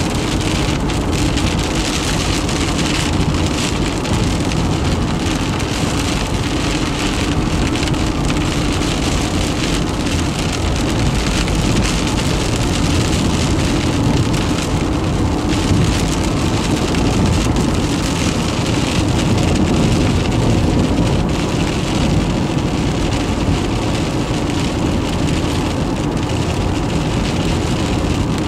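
Rain pelting the windshield and body of a moving car, heard from inside the cabin as a dense, steady patter of drops over continuous road and tyre noise.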